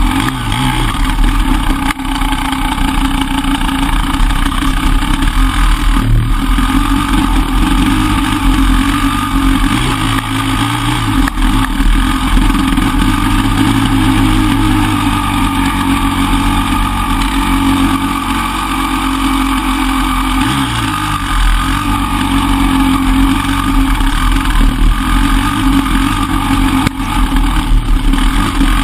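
Enduro dirt bike engine running close to the microphone, its pitch rising and falling with the throttle as the bike rides a rough trail.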